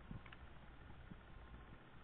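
Near silence: faint hiss and a low steady hum from VHS tape playback, with a few soft ticks.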